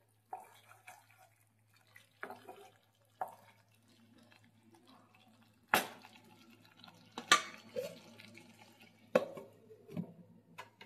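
Kitchenware knocking and clinking: a handful of separate sharp knocks, the loudest about six seconds in, over a faint steady hum.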